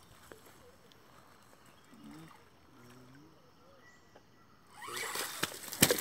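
A low, quiet outdoor background with faint voices. About five seconds in, loud rustling with many sharp knocks and clicks starts as the phone is swung about: handling noise on the microphone.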